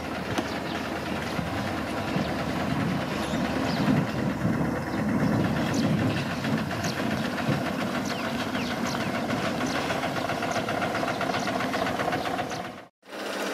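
Heavy construction machinery running: a diesel engine working with rattling and clanking, its low rumble swelling about four seconds in. The sound cuts out for an instant near the end, and a steadier engine hum follows.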